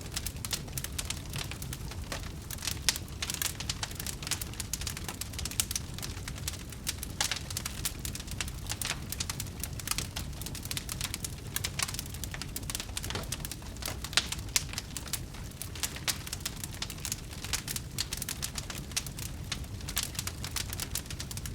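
Wood fire crackling, with many irregular sharp pops and snaps over a steady low rumble of the flames.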